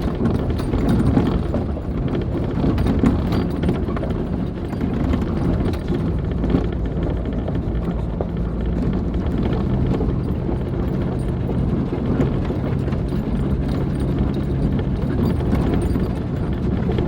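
Jeep driving over a rough dirt trail: steady engine and tyre noise with frequent knocks and rattles as the body and suspension go over bumps, the engine note holding steady through the middle.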